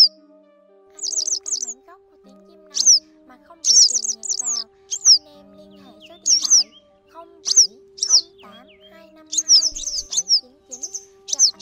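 Yellow wagtail calls: sharp, high, downward-sliding notes repeated every second or so, sometimes in quick runs of two to four. Quiet background music with held notes plays underneath.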